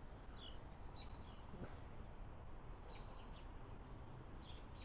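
Small birds chirping faintly, short high chirps every second or so, over a steady background hiss.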